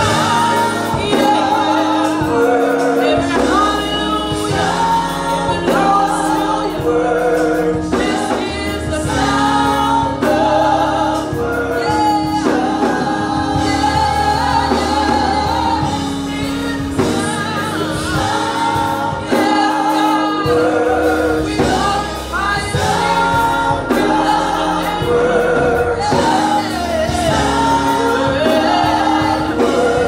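Live gospel worship song: a small praise team of singers, mostly women, singing into microphones over keyboard accompaniment with held bass notes.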